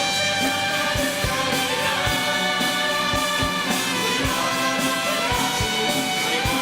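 Instrumental orchestral music with brass, carried by a steady low beat of about two to three strokes a second.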